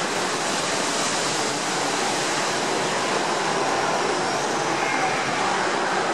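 Ocean surf churning and breaking against rocks, a steady rush of foaming water.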